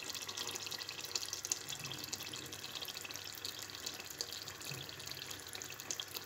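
Aloo baingan curry gently simmering in a non-stick pot on the burner: a faint, steady crackling sizzle.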